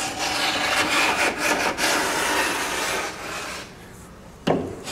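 Hand block plane shaving wood off a boat's wooden stem in quick scraping strokes, trimming the plywood bottom planking flush with the stem angle. The strokes die down after about three seconds, and a single sharp knock comes near the end.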